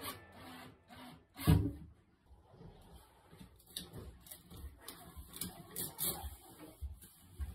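Handling noises from work on the drain fittings inside a washbasin vanity cabinet: one louder thump about a second and a half in, then scattered light clicks, knocks and rubbing.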